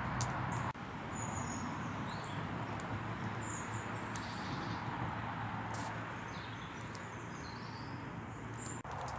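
Small birds chirping now and then over a steady rushing background noise, which changes abruptly about a second in.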